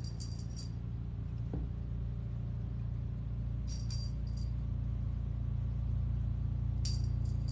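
A cat wand toy jingling in short, irregular bursts as the cat bats at it: once at the start, again about four seconds in, and near the end. A steady low hum runs underneath.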